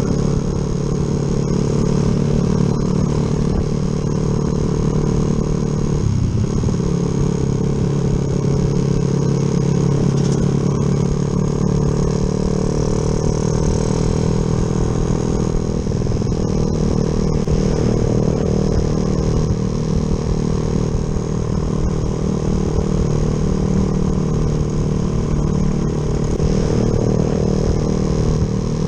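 Yamaha Jupiter MX motorcycle engine, bored up with a 72 piston, running steadily under way, with a brief dip in the engine note about six seconds in.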